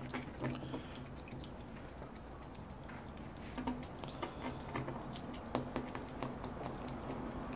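Ferret chewing a piece of chicken: irregular small wet clicks and smacks, coming more thickly in the second half.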